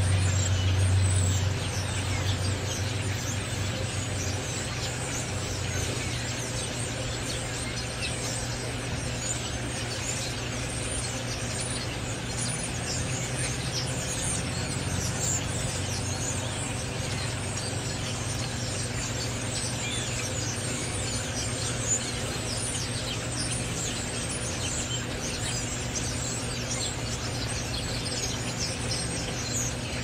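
A huge flock of dark songbirds feeding on the ground, giving a dense, unbroken chatter of squeaks and whistles. A steady low engine hum runs underneath, louder in the first second or so.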